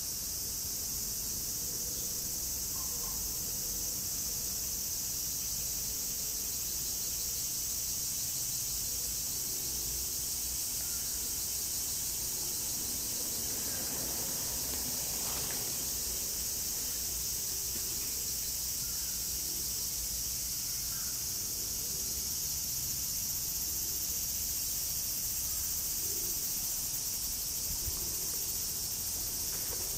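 A steady, high-pitched chorus of insects, a constant shrill hiss that doesn't let up.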